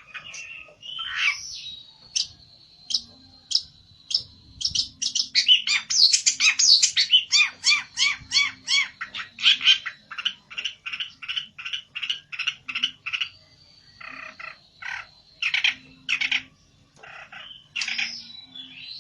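A pelentet songbird calling in an agitated territorial way: a long run of sharp chirping notes, three or four a second and fastest in the middle, over a thin, steady high whistle.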